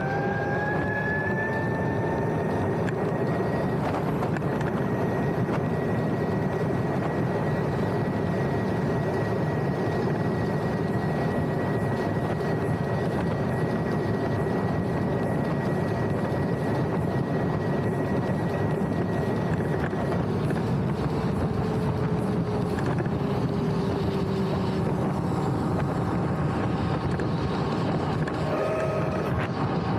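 Electric scooter riding along under a steady rush of wind and road noise. The motor's whine rises in pitch over the first few seconds as the scooter speeds up, then holds steady until about two-thirds of the way through.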